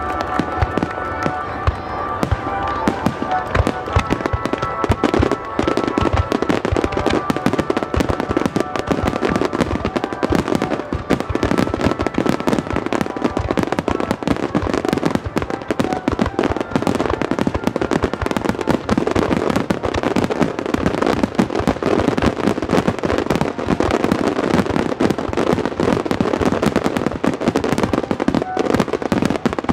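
Aerial fireworks display: a dense, rapid barrage of shell bursts and crackling, building up over the first few seconds and then going on without a break.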